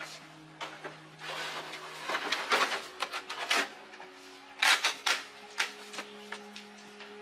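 Irregular clicks, clatter and short scraping sounds of hand repair work on the bike's parts, busiest in the first half and again around five seconds in, over soft background music.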